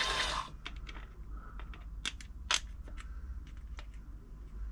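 Toyota 2640 sewing machine running, cutting off about half a second in, followed by a string of irregular light clicks and taps while the machine is being oiled.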